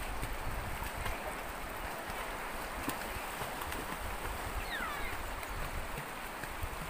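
Steady rush of a shallow, rocky river, with wind buffeting the microphone. A faint high call falls in pitch about five seconds in.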